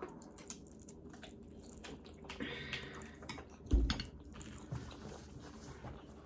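Mouth sounds of someone eating saucy black bean noodles: soft wet chewing and slurping with small clicks, and one louder low thump a little before the four-second mark.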